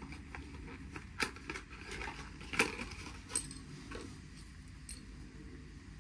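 Metal tools and brake-pad hardware being handled: four separate sharp clinks, the loudest about two and a half seconds in, as a small wrench is picked up and a bicycle rubber brake pad is worked on.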